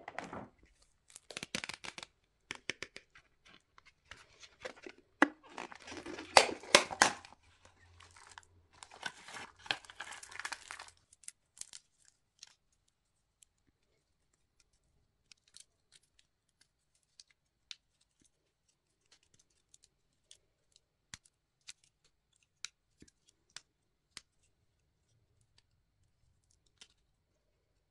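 Plastic wrapping torn open and crinkled by hand in bursts for the first eleven seconds or so, then scattered light clicks as the segments of a plastic twist snake puzzle are turned.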